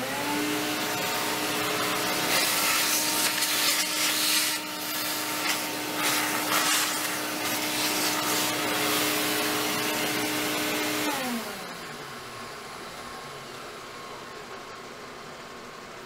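A vacuum cleaner motor is switched on with a fast rising whine and runs about eleven seconds with a steady hum and an uneven rushing of air. It is then switched off and winds down in a falling whine, leaving a quieter steady machine hum.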